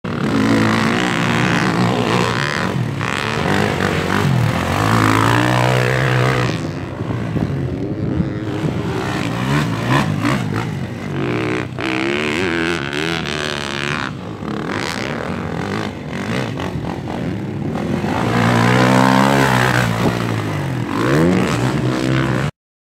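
Motocross bike engine revving hard around a dirt track, its pitch climbing and dropping again and again with throttle and gear changes, louder at moments as it passes closer. The sound cuts off suddenly near the end.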